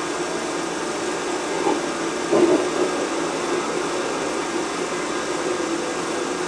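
Steady running noise heard from inside a moving passenger vehicle, an even rumble and hiss with no break.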